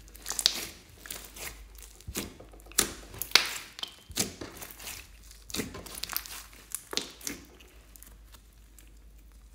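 Glossy slime squeezed and stretched by hand, giving a quick irregular run of wet crackles and pops. The crackling dies down after about seven and a half seconds.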